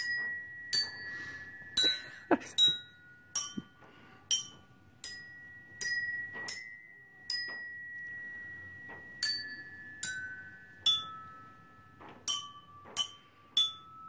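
Hand-held metal chime bars struck one at a time, each sounding a single ringing note, picking out a tune note by note. About sixteen notes come at an uneven pace, with a pause of nearly two seconds a little past the middle.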